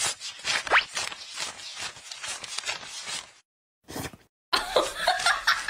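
Paper banknotes being flicked and counted by hand: a quick run of crisp rustling flicks, with a short rising whistle-like glide under a second in. From about four and a half seconds in, a quick run of repeated pitched sounds takes over.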